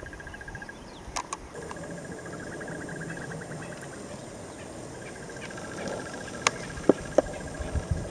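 A rapid, evenly pulsing insect trill at one steady pitch, coming in stretches, with a few sharp clicks and snaps, the loudest near the end.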